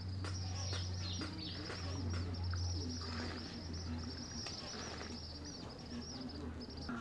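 Birds chirping continuously at a high pitch over a steady low hum; both cut off suddenly near the end.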